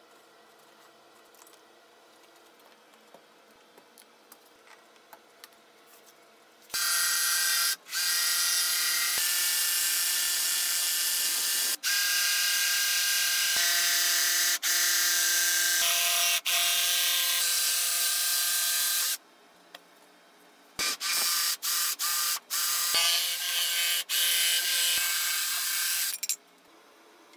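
Bosch cordless jigsaw cutting a curve in a wooden panel. It runs steadily in long stretches with brief stops, then in shorter starts and stops near the end. The cutting follows a few seconds of faint small ticks.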